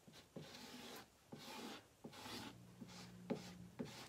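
Squeegee scraping wet chalk paste across a mesh silk-screen transfer on a chalkboard, in several short, faint strokes about a second apart.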